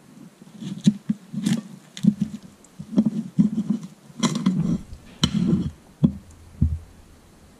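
A table knife carving a baked ptarmigan on a ceramic plate: irregular sharp clicks and scrapes of the blade against the plate, mixed with soft sounds of the meat being cut and pulled apart.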